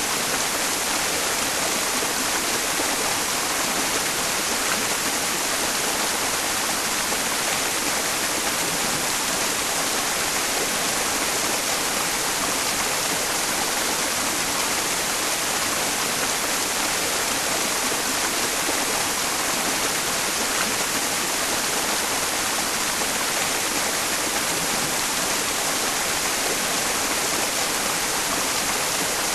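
Mountain stream rushing steadily, blended with a layer of white noise that fills the high end; an even, unchanging hiss and water sound for tinnitus masking.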